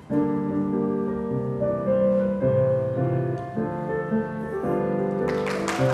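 Roland digital stage piano playing a slow introduction in sustained piano-voice chords that change about once a second. Near the end a noisier sound joins the playing.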